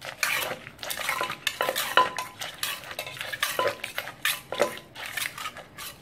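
A wooden pestle knocking in a clay mortar while a metal spoon scrapes and turns the wet salad, pounding som tam. The knocks and clinks come irregularly, a few times a second.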